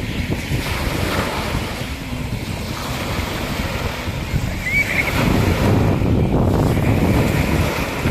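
Sea waves washing ashore, with wind buffeting the microphone and growing louder in the second half. A brief high chirp about five seconds in.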